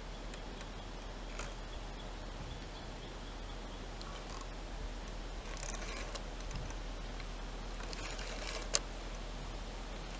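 Quiet background with a steady low hum, faint scattered ticks and rustles, a short hiss about halfway through, and one sharp click near the end.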